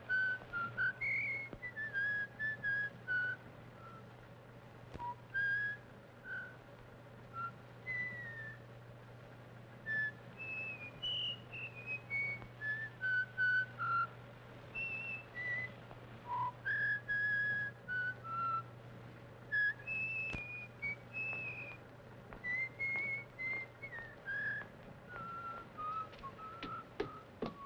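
A person whistling a tune in short, separate notes that wander up and down, over a steady low hum.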